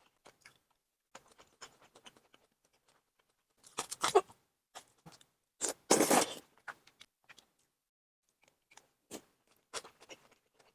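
Close-miked mukbang eating sounds: soft chewing and small clicks of chopsticks and food, with two louder noisy bursts, about four and six seconds in.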